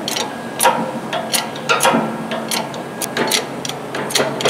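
Hand-pumped hydraulic shop press being worked, a sharp click with each stroke of the pump handle, about one every two-thirds of a second, over a low steady hum, as a gear is pressed onto a transmission shaft.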